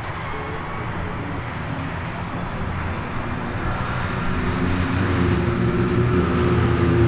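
Racing cars' engines running at moderate speed on the formation lap, a steady drone that gets louder over the second half as more cars come closer.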